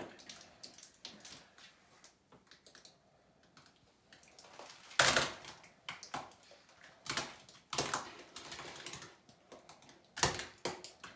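Thick slime poured from a bowl over a person's head, splattering and dripping into a bathtub in a run of wet splats. The loudest splatter comes about five seconds in, with more splats near seven, eight and ten seconds.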